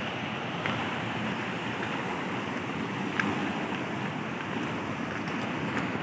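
A steady rushing outdoor background noise, with a few light ticks of footsteps on a concrete path.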